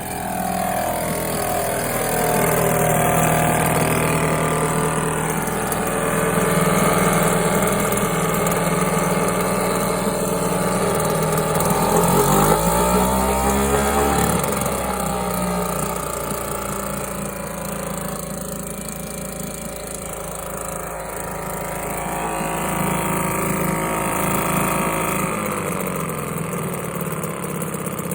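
British Seagull 40 Featherweight single-cylinder two-stroke outboard running with no propeller fitted, so off load. The engine speed rises and falls a few times, dipping and picking back up about halfway through. It runs smoothly after its water gallery was cleaned out.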